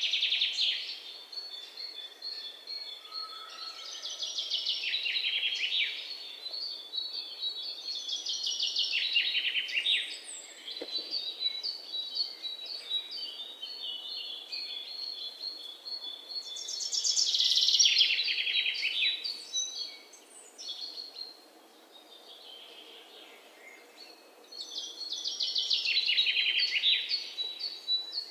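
A songbird singing: fast trilled phrases that fall in pitch, repeating every few seconds, with high thin steady notes between them.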